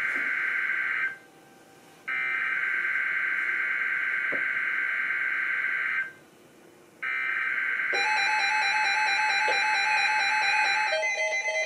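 NOAA Weather Radio SAME header, the digital data bursts that switch receivers into alert mode, sent as three buzzy bursts with a gap of about a second between each. From about two-thirds of the way in, a receiver's electronic alert tones start over the last burst and keep sounding after it stops.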